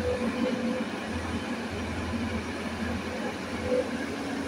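Tata Hitachi hydraulic excavator at work: its diesel engine runs in a steady drone, with a faint whine that comes and goes.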